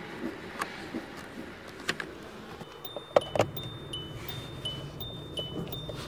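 Sharp metallic clicks and knocks from a rod and the ignition lock cylinder being worked in a Hyundai Accent's steering column, the loudest about three seconds in. From about three seconds the car's electronic warning chime starts, a repeating two-note ding.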